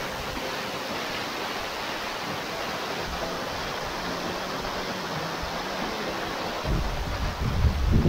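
A tall waterfall's heavy flow crashing onto rocks, a steady, dense rush of falling water and spray. From about two-thirds of the way in, low rumbling buffets hit the microphone.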